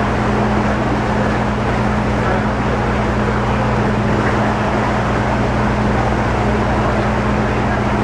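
Engines of the Catalina Flyer, a large catamaran ferry, running at steady cruise: a constant low drone with a steady rushing wash of water and air over it.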